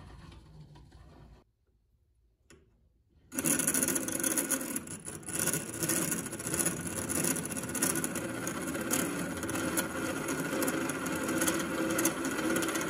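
Restored 1940s Bridge Tool Company hand-crank grinder: a flat piece of steel pressed on the tool rest and ground against the turning stone, a steady rasping that starts about three seconds in and cuts off suddenly at the end. Before it, the wheel turns quietly, with a short near-silent gap.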